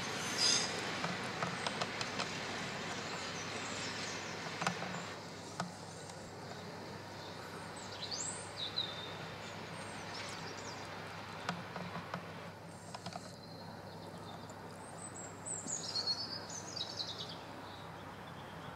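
Diesel-hauled charter train moving away, its running noise fading, with the upper hiss dropping away about five seconds in. A few bird chirps come through around eight seconds and again near the end.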